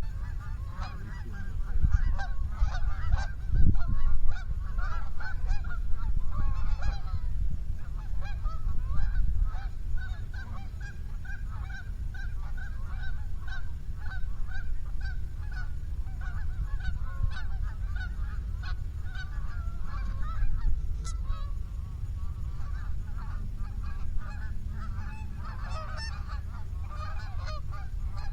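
A flock of geese honking, many short overlapping calls going on continuously, busiest near the start and the end, over a steady low rumble.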